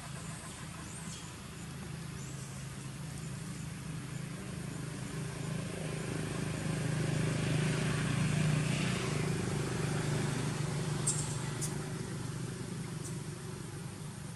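Low, steady engine hum of a motor vehicle, swelling to its loudest about eight seconds in and then fading.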